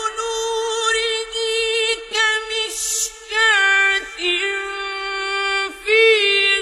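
Melodic Quran recitation by a single unaccompanied high voice, holding long steady notes with quick ornamented turns of pitch and short breaks between phrases.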